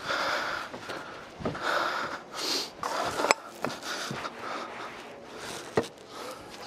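Rustling movement noise, in short bursts, with a few sharp knocks of footsteps on wooden deck steps.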